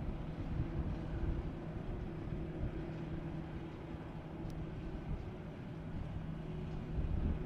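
Jet engines of a Boeing 747 freighter taxiing at idle thrust: a steady low hum with two held tones over a rumble.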